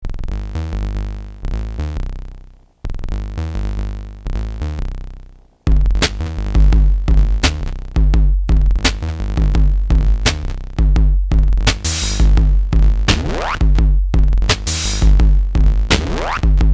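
Electronic music on a drum machine and synthesizer: a bass-and-synth phrase plays twice, each time fading away, then a full beat with heavy bass and sharp drum hits comes in about six seconds in.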